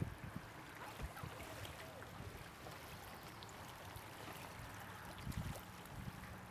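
Faint lakeside ambience: a low wash of lapping water, with a few low thumps at the start and about five seconds in. A few faint short whistles rise and fall above it.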